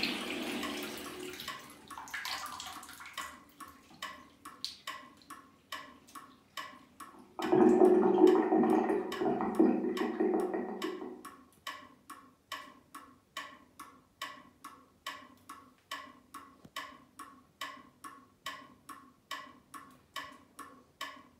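Battery-powered golden waving cat (maneki-neko) ticking steadily as its arm swings, about two ticks a second. A loud rushing noise covers the ticks for about four seconds midway.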